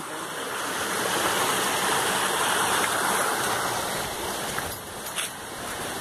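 Water rushing over the rocks of a stream, a steady hiss that swells early on and eases off a little after about four and a half seconds, with one brief knock near the end.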